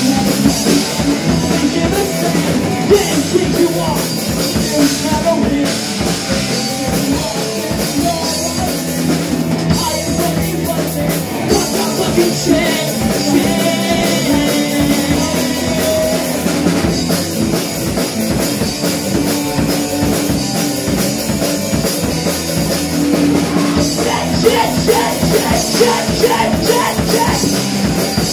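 Live rock band playing an instrumental stretch: electric guitars through amplifiers over a drum kit, loud and continuous.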